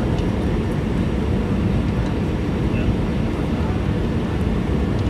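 Steady low rumble inside an Airbus A320's cabin from its engines and the rushing air, with the jet low on final approach.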